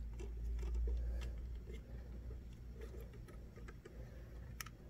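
Faint, irregular clicks of small plastic Lego pieces being handled and pressed onto a build, over a low steady hum.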